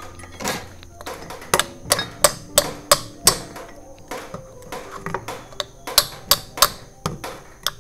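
Repeated light metal taps and clicks, about three a second from a second and a half in, as the wrist pin is worked into the piston of a Yamaha Shaolin two-stroke engine. Faint background music runs underneath.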